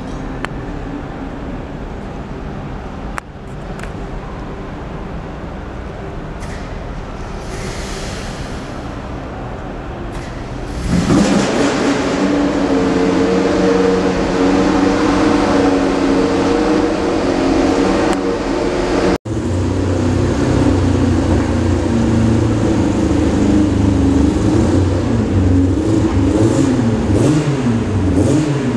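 Steady background noise, then about eleven seconds in a loud car engine sound comes in and keeps going, its pitch wavering up and down as it is revved; it drops out for an instant about nineteen seconds in.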